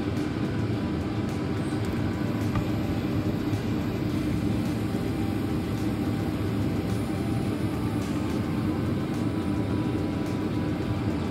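A steady low droning noise with no distinct knocks or clinks.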